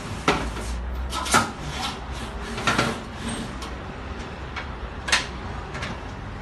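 Polyurethane rolling-shutter slats knocking and clacking as the shutter is pushed out into its half-scissor open position: a few sharp, irregular knocks, the loudest early on and one more about five seconds in.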